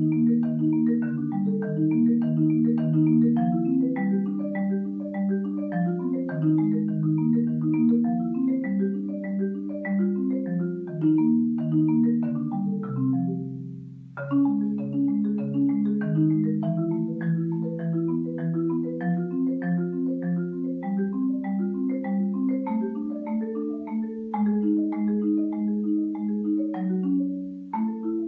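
Solo marimba played with mallets: a continuous, flowing stream of notes, mostly in the low-middle range. The line fades away about halfway through, then starts again on a new phrase.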